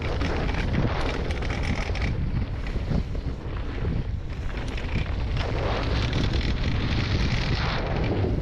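Wind buffeting the microphone of a helmet-mounted camera on a mountain bike riding fast downhill, a steady heavy rumble, with scattered clicks and crunches from tyres and bike on a dry dirt and gravel trail, most in the first couple of seconds.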